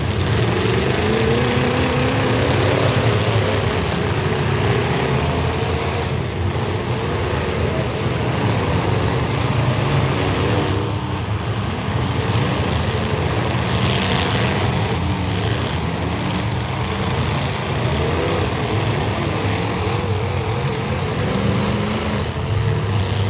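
Several demolition derby cars' engines revving together, their pitches rising and falling unevenly as the drivers push into the pile of cars.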